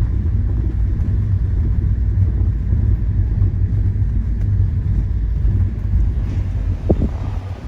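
Steady, loud low rumble of a car on the move, with a brief short rising sound about seven seconds in.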